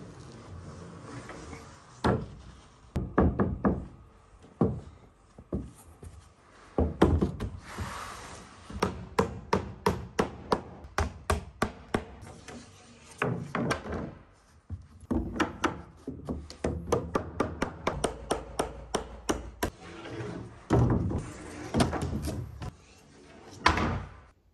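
Hammer driving nails into wooden roof boards: runs of quick sharp strikes with short pauses between them.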